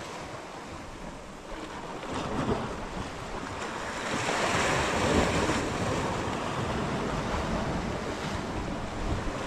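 Sea waves washing and breaking against a rocky shoreline, with wind buffeting the microphone. The surf grows louder about four seconds in.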